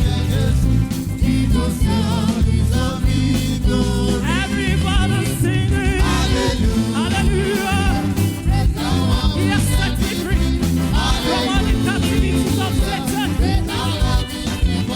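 Upbeat gospel praise music with a heavy, steady bass beat, and a voice singing wavering runs over it from about four seconds in.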